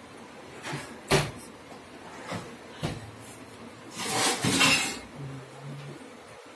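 Aluminium almirah drawers pushed shut, a sharp knock about a second in and a few lighter clicks after it, then a longer scraping rattle about four seconds in.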